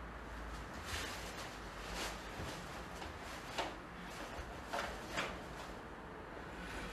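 Faint swishes and snaps of a karate gi with each block and strike, together with bare feet sliding on a wooden floor, during a kata. About six short, sharp swishes come at uneven intervals.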